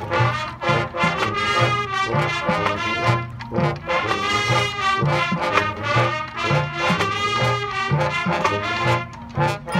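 Marching band playing: brass section (trumpets, trombones) sounding sustained chords over a steady drum beat.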